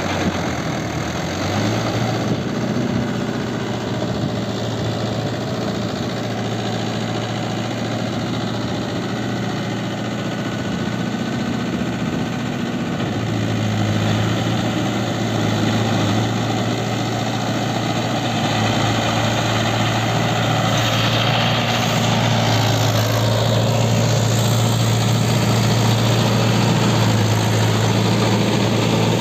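Mahindra Yuvo 575 tractor's four-cylinder diesel engine running steadily under load while it drags a rotary tiller through flooded paddy mud. It grows slightly louder in the second half.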